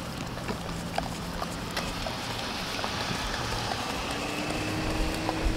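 A dog licking whipped cream from a small paper cup, with faint wet clicks scattered through, over a steady low vehicle hum.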